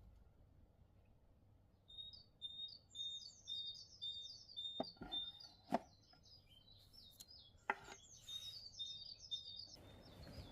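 A songbird chirping in a fast series of short, high notes that starts about two seconds in and stops shortly before the end, with a few sharp clicks in between.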